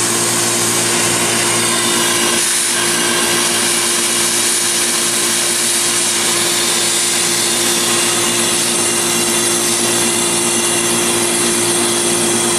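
Pressurised nitrogen hissing steadily out of a discharge hose as it is blown through an AC condenser coil to purge RX11 flush solvent after a compressor burnout; mostly vapor is coming out, so the coil is nearly flushed clear. A steady low hum runs underneath.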